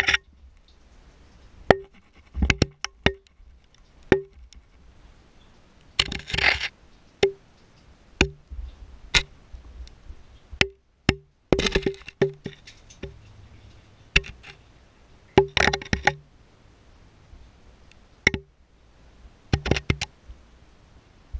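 Irregular sharp knocks and clicks against rock inside a stone well shaft, each with a short hollow ring, and three longer rattling, scraping bursts of loose rock.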